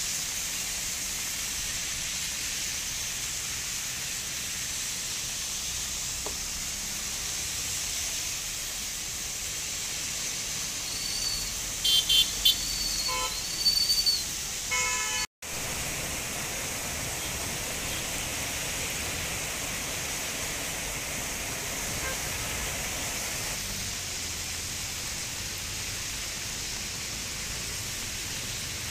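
Steady hiss of heavy rain and traffic on a waterlogged road, with vehicle horns honking several times in short toots about halfway through. The sound cuts out for an instant just after, then the steady hiss carries on.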